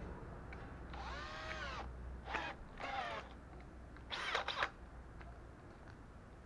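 A crow cawing four times: a long, hoarse call that rises and falls, then three shorter caws.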